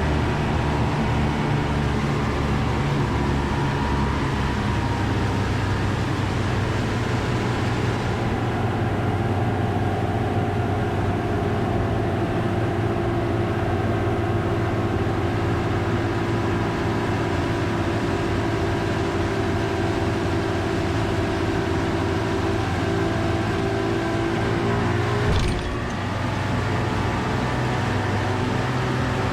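Outboard engine of a sport-fishing boat running steadily under way, with wind and water noise. A brief knock comes near the end, after which the engine note shifts slightly.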